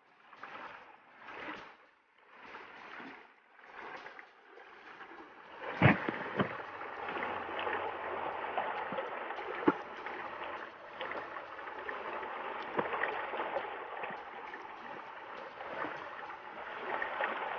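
Shallow rocky stream running over and around boulders: a steady rush of water with small splashes and clicks. In the first few seconds the water sound swells and fades about once a second, then settles into a continuous rush from about six seconds in.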